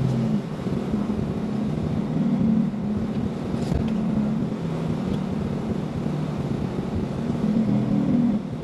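Mercedes-Benz truck's diesel engine running steadily at low revs, heard from inside the cab as the truck is manoeuvred slowly in reverse to park.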